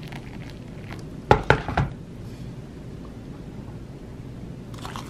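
A quick cluster of three sharp knocks and clinks about a second and a half in: an electric kettle being set back down on the counter after pouring boiling water.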